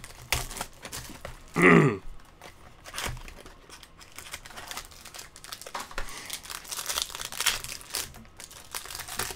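Foil trading-card pack wrapper crinkling and tearing, with cards being handled, as baseball card packs are opened. About two seconds in there is one short, loud sound that falls in pitch.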